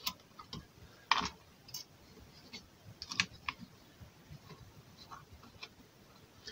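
Light, irregular clicks and taps of a hand working inside an open desktop computer case, handling the blower fan and fitting a 2032 coin cell into its socket.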